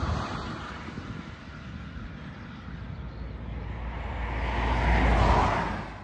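Traffic going by on a busy road, with one vehicle passing louder about five seconds in.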